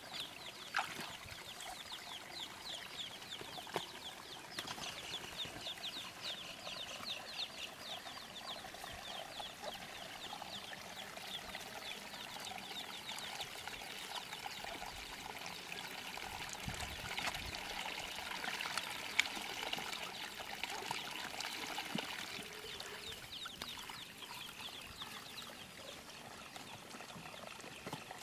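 Muddy water pouring and trickling in small splashes as the trap and a plastic basket are emptied and rinsed in a puddle.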